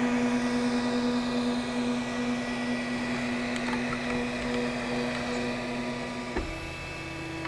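MakerBot 3D printer's stepper motors giving a steady whine over the hum of its cooling fans as the machine moves at the end of a finished print. About six seconds in there is a click and the whine shifts to a different pitch.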